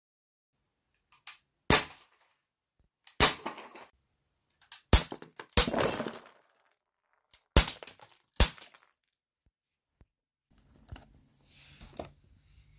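A Glock 22 CO2 airgun pistol fires 4.5 mm steel BBs at a glass whisky bottle: about six sharp cracks a second or two apart. After the fourth crack there is a longer crunch of glass breaking and shards falling, which lasts about half a second.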